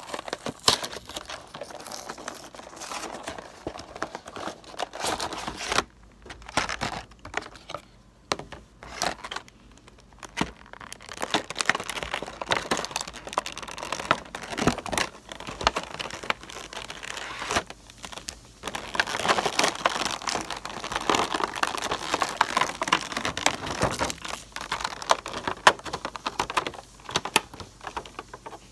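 Cardboard box and clear plastic blister packaging of a Pokémon pin collection being unpacked by hand: irregular crinkling, tearing and clicking, busiest a little past the middle.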